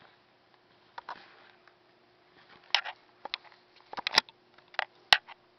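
Handling noise as headphones and their cord are packed into a soft carrying bag: scattered rustles and a run of sharp clicks and taps, the loudest about four and five seconds in, over a faint steady hum.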